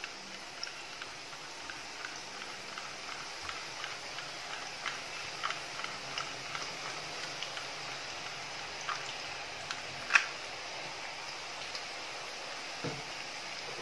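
Pakkavada dough strands deep-frying in hot oil in an iron kadai over a medium flame: a steady sizzle with many small scattered pops and crackles, and one sharper click about ten seconds in.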